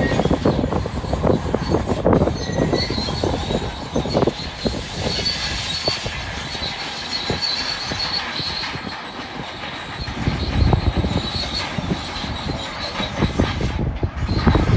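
Bulldozer working, its steel tracks clanking and rattling with a high metallic squeal over the engine. It eases off midway and grows louder again about ten seconds in.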